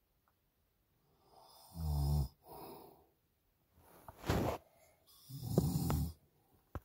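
A man snoring in his sleep: a series of loud snoring breaths a second or two apart, picked up by a phone's microphone inside a truck. A short click near the end.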